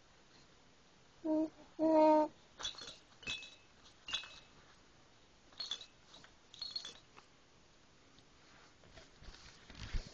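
Two short, steady-pitched vocal sounds from an infant, the second and louder one about two seconds in, followed by a run of faint high-pitched clicks and clinks.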